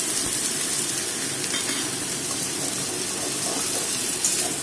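Wet ginger, cumin and green chilli paste sizzling in hot oil in a wok of fried prawns, stirred with a metal spatula, with a sharp knock of the spatula about four seconds in.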